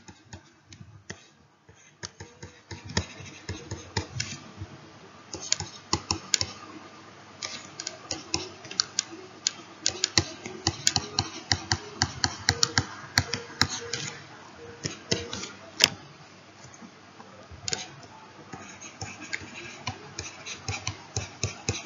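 Keys being pressed in quick, irregular runs of sharp clicks, with a short pause about two thirds of the way through.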